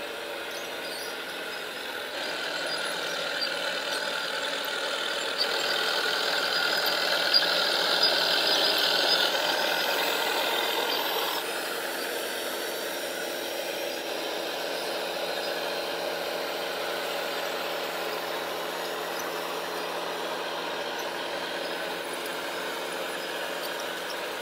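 Radio-controlled model tractor running as it moves a heavy roller over sand: a steady mechanical drone that grows louder about two seconds in and drops back about halfway through, with a few sharp clicks in between.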